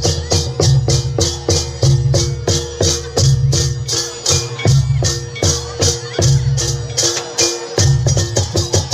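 Live Javanese barong/jaranan percussion ensemble playing: rapid, even cymbal strokes about five a second over a pulsing low drum, with two held pitched tones sounding through.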